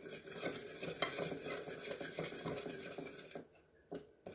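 A metal fork stirring and scraping a dry sugar-and-cinnamon mix around a small bowl. Near the end the steady scraping gives way to a few separate light taps of the fork.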